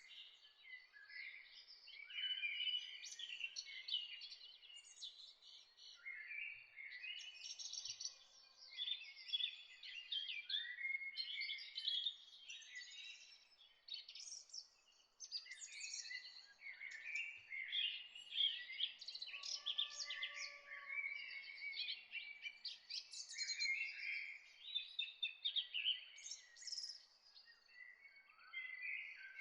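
Several birds chirping and singing together in a continuous chorus of short, high notes and trills, over a faint steady hiss.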